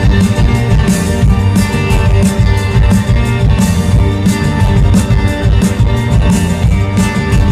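A live rock band playing an instrumental passage loudly over the PA, with guitars to the fore over bass and a steady beat.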